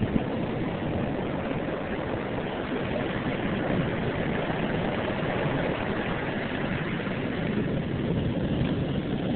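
Rough, storm-driven surf breaking and washing up the beach: a steady, even rush of waves, kicked up by a hurricane far out in the Gulf.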